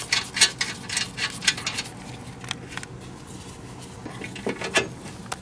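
Light metallic clicks and clinks of a washer and nylock nut being fitted and spun on by hand onto the threads of an Inconel trailing arm bolt: a quick run of clicks in the first couple of seconds and a few more near the end, over a faint low hum.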